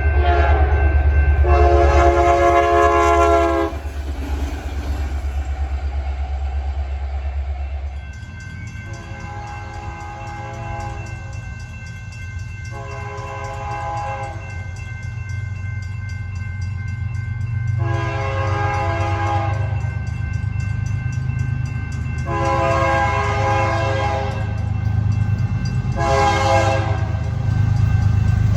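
Nathan K3LA/K3HA 'Narrow Font' five-chime air horn on a diesel locomotive, sounding a chord that ends about three seconds in over the heavy rumble of the locomotive's engine. After an abrupt change about eight seconds in, a horn sounds six separate blasts over engine and rail noise, mostly long, with the fifth one short.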